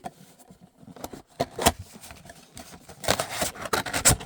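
Crackling, rustling and scraping of packaging being handled as a trading card hobby box and its packs are opened, with irregular sharp clicks and crinkles.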